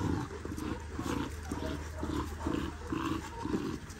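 Puppies play-growling in a run of short, rough growls, two or three a second.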